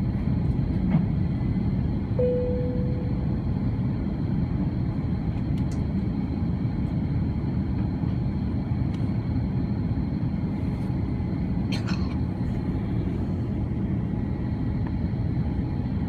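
Steady low rumble of engine and airflow inside the cabin of an Airbus A330-300 airliner in flight. A single cabin chime sounds about two seconds in and fades, and there is a faint click near the end.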